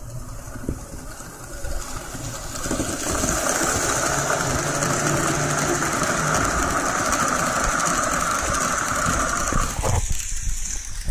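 N-gauge model train running on the layout, its small motor and wheels making a steady whir. The whir builds up over the first few seconds and stops shortly before the end, with scattered clicks around it.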